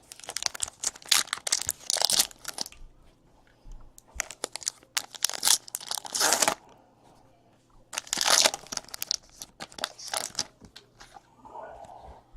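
Trading card pack wrappers being torn open and crinkled, in three bursts of crackling a couple of seconds each.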